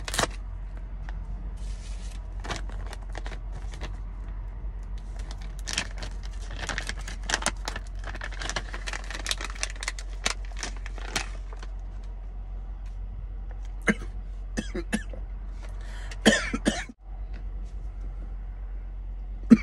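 Jerky bag crinkling and rustling as it is torn open and handled, in a dense run of crackles for several seconds, then only scattered crackles. A short throaty sound comes near the end, over a steady low hum.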